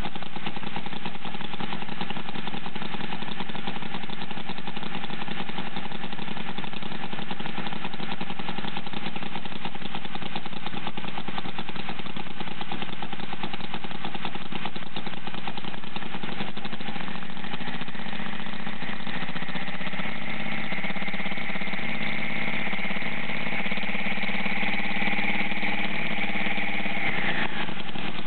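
Home-built miniature Howell V-twin model engine running steadily on petrol while belt-driving a small generator. A rapid, even firing rhythm runs throughout. Past the middle a high whine builds up, then falls away suddenly near the end as the running note dips slightly.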